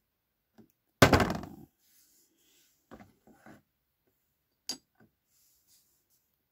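A loud thunk about a second in, then a few lighter knocks and a sharp click near the end, as a perfume bottle, lotion tube and rollerball vial are moved about and set down in a clear plastic gift box.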